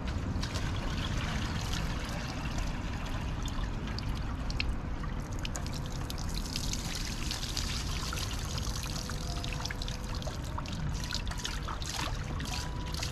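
Water poured from a plastic bucket over a small mud-filled metal safe, splashing and trickling off it onto the pavement; the pouring is strongest in the middle stretch.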